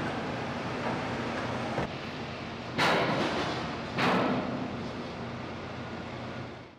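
Two loud metallic clanks, the second about a second after the first, as a vehicle rolls over a ferry's steel vehicle ramp. Each clank rings out over a steady background rumble of the dockside.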